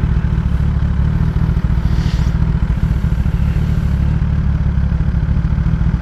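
Kawasaki ZX-10R's inline-four engine with a Graves race exhaust running steadily, a dense low rumble with no revving.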